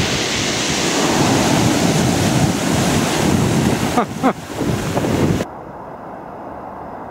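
Surf breaking and washing up a pebble beach around a small boat's hull, with wind buffeting the microphone. About five and a half seconds in it cuts off suddenly to a quieter, steady wind hiss.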